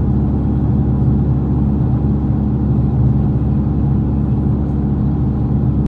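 In-cabin drone of a 2013 Chrysler 300C's straight-piped 5.7-litre Hemi V8 (cats gutted, resonators and mufflers removed) cruising steadily at highway speed, about 77 mph, with road noise underneath.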